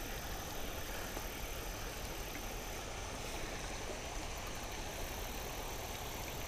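Steady outdoor background noise: a low rumble under a faint even hiss, with no distinct events.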